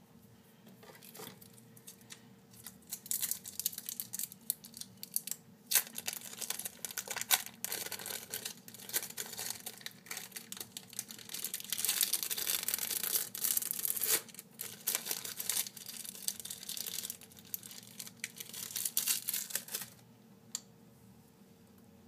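Thin plastic being crinkled and crumpled in the hands: dense, irregular crackling that starts about two seconds in, swells and fades, and stops about two seconds before the end.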